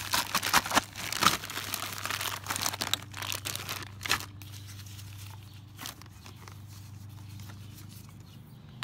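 Plastic zip-top bag crinkling and rustling as hands rummage in a fabric gear bag, for about four seconds. Then the handling stops, leaving a low steady hum and a couple of light ticks.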